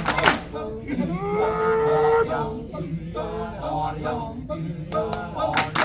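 Kecak chorus of Balinese male voices: the rapid "cak-cak-cak" chant breaks off about half a second in, and male voices sing long, wavering held notes instead. The rapid chant comes back near the end.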